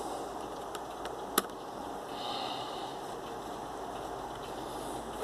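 Small screwdriver working the keyboard retaining screw out of a Dell Latitude laptop: a sharp click about one and a half seconds in and another near the end, over a steady hiss.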